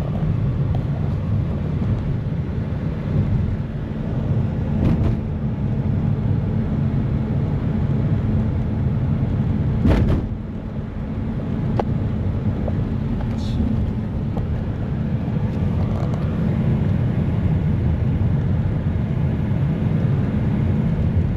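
Car driving: a steady low engine and road rumble, with a sharp knock about ten seconds in.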